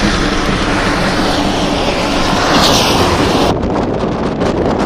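Strong microburst wind gusts blowing over the microphone, a loud continuous rushing with buffeting. The high hiss drops away suddenly about three and a half seconds in.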